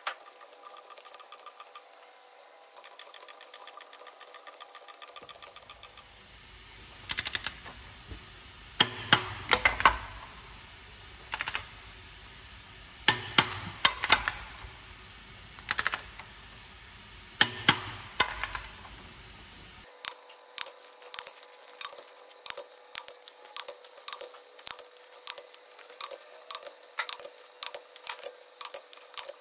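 Torque wrench and ratchet tightening cylinder-head bolts on an OM 460 diesel engine, done in stages to a set torque and angle. Loud sharp clicks come in small groups, then about two-thirds of the way through a fast, even run of ratchet clicks begins.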